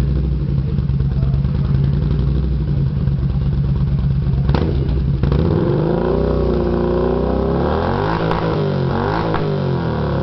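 Yamaha Midnight Star 950's V-twin running through an aftermarket Escorpion exhaust: it idles steadily for about five seconds, then the throttle is blipped and the engine is revved several times, its pitch rising and falling.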